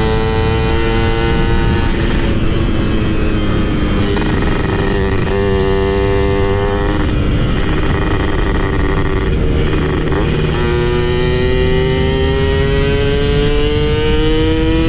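Yamaha F1ZR's single-cylinder two-stroke engine running under way. Its pitch holds and shifts several times, dips briefly about two-thirds of the way through, then climbs slowly toward the end as the bike speeds up.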